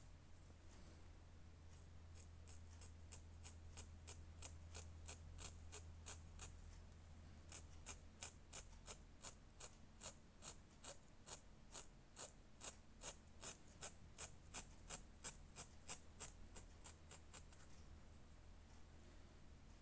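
Felt tip of a textile marker scrubbing on fabric in short back-and-forth strokes, about two or three a second, faint, becoming more distinct from about a third of the way in. A faint steady low hum runs underneath.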